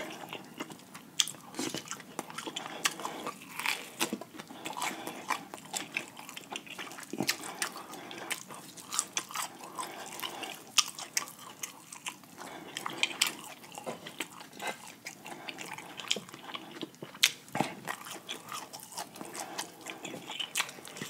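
Close-miked eating of fried chicken legs: chewing and biting through the crisp breading and meat, heard as many irregular sharp crackles and clicks.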